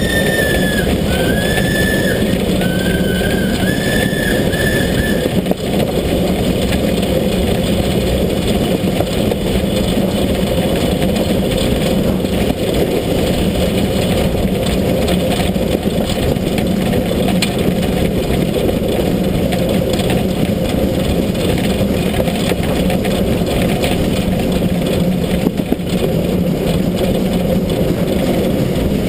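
Steam locomotive S 33-037, a 2-10-0 of the German class 52 type, running along the line, heard from beside its wheels: a steady loud rumble of wheels and running gear on the rails. A high, wavering squeal comes and goes over the first five seconds.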